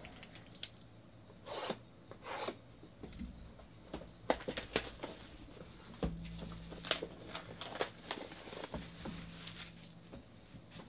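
Cardboard trading-card boxes being handled, slid and set down on a table: scattered short rustles, scrapes and light knocks.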